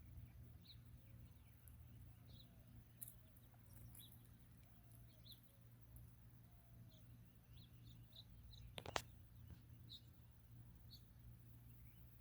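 Faint, scattered short bird chirps over a low steady hum, with a single sharp click about nine seconds in.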